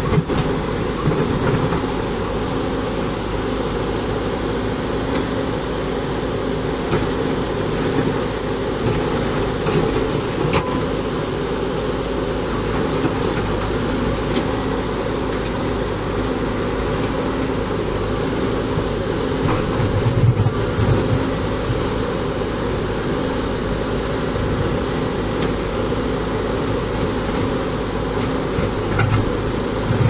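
Backhoe loader's diesel engine running steadily, with a brief louder low surge about two-thirds of the way in and another near the end.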